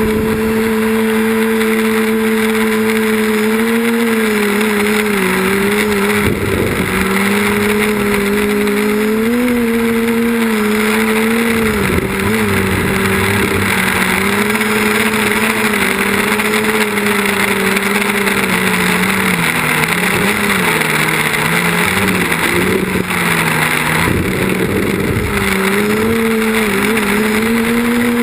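Quadcopter's electric motors and propellers droning loudly, the pitch rising and falling continuously with throttle changes, dipping lowest a little past the middle.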